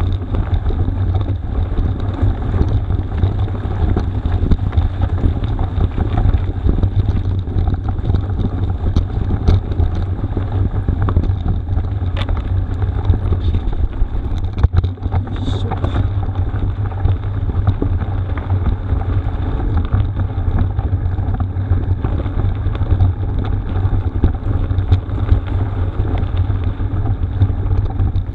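Steady heavy wind rumble on the camera microphone and tyre noise while a mountain bike is ridden along the course, with a few short knocks.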